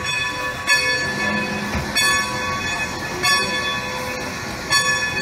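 Steam locomotive bell ringing steadily, four strokes about 1.3 seconds apart, each ring hanging on until the next.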